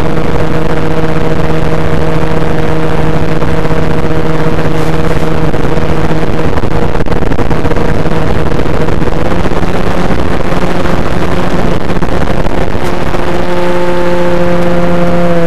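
Electric motor and propeller of an FPV radio-controlled plane under power, a steady droning hum with heavy wind rush, heard from the plane itself. The pitch steps up slightly about nine seconds in as the plane climbs with more throttle.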